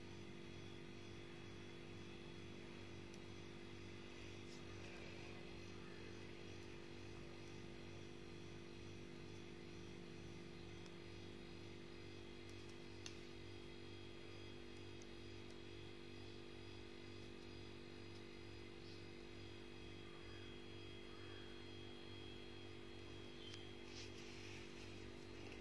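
Faint steady hum, close to silence, with a single faint click about halfway through and a few soft ticks near the end.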